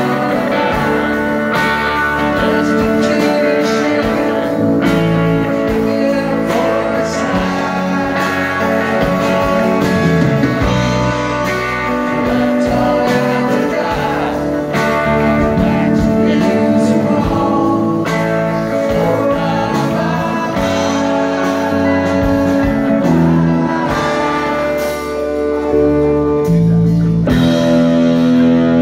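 Live rock band playing a song: a man singing lead over electric guitar, bass guitar, drums and electric keyboard.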